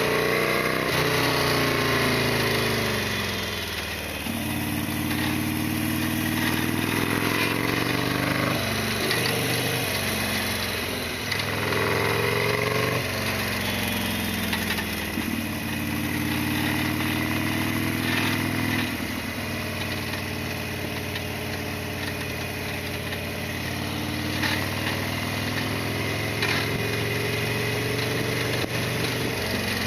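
Harley-Davidson Sportster XL1200R's air-cooled 1200 cc V-twin running on the move. The revs climb and fall back several times in the first half as it is ridden through the gears, then hold fairly steady.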